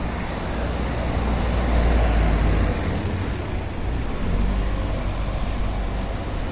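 Road traffic noise: a steady low rumble of a vehicle going by, swelling about two seconds in and again briefly later.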